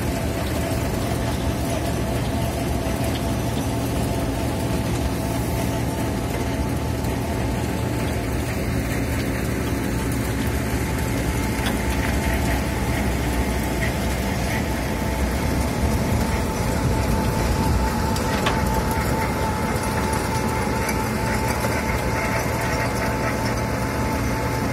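Wirtgen W 100 H road milling machine working alongside a dump truck: heavy diesel engines running steadily under the dense din of the machine cutting asphalt, with a whine that shifts higher about two-thirds of the way through.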